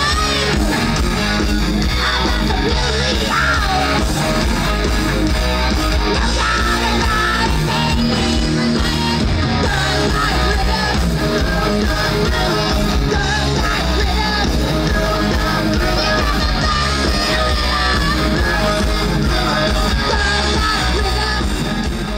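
A rock song with electric guitar and a singing voice.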